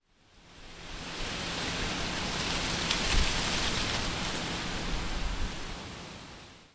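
Whooshing noise swell of an intro sound effect, rising over about a second, peaking around the middle with a brief deep accent, then fading away and cutting off abruptly.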